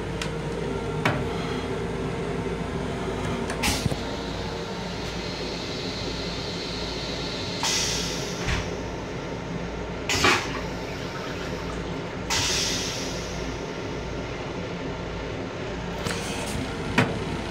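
Railcar restroom toilet flushing into its stainless steel bowl: a few clicks, then three short rushing whooshes of water and air about halfway through, the middle one the loudest. A steady low rumble of the train runs underneath.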